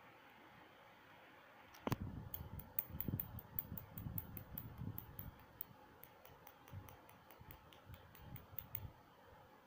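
A puppy's claws clicking quickly and irregularly on a hard terrazzo floor as it pounces on and tugs a stuffed toy tiger, with soft thumps; it starts with a sharp knock about two seconds in.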